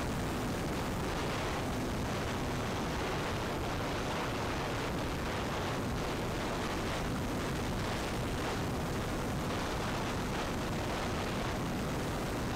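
Wind rushing over a camera on the wing of an electric E-flite Cessna 150 Carbon-Z RC plane in flight, with the faint steady hum of its motor and propeller fading out and coming back around the middle.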